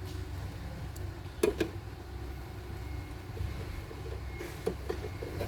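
Small handling clicks from work on the control panel's wiring: two sharp clicks about a second and a half in and a few lighter ones near the end, over a steady low background hum.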